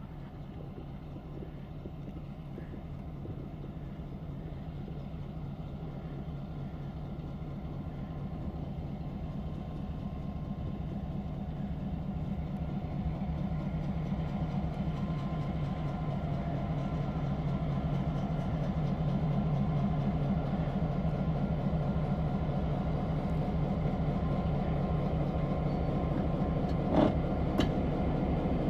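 Canadian National F3A diesel locomotive's engine running steadily and getting gradually louder as it draws near, with a couple of sharp metallic clicks from the wheels or couplers near the end.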